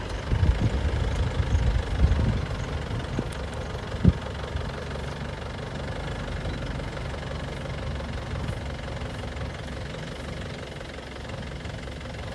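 Safari jeep engine idling, a steady low rumble that is heavier and more uneven in the first two seconds or so. A single sharp knock sounds about four seconds in.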